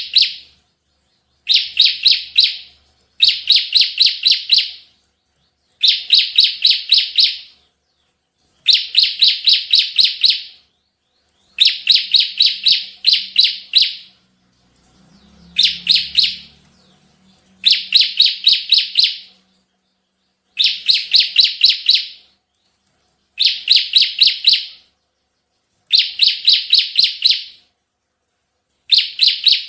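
Ciblek (bar-winged prinia) singing in rapid-fire 'tembakan' bursts. Each phrase is a quick string of about five to seven sharp, high chirps, and the phrases repeat every two to three seconds.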